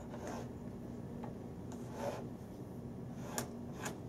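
Hands rubbing and smoothing Simonis billiard cloth on a pool table's slate bed: soft rustles, then two light clicks about half a second apart near the end, over a faint steady hum.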